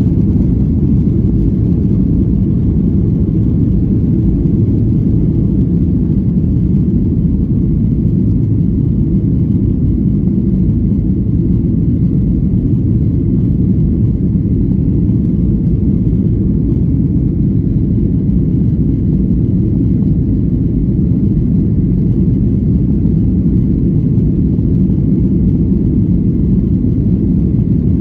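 Steady low rumble of a passenger jet's cabin, engine and airflow noise, holding an even level with no change.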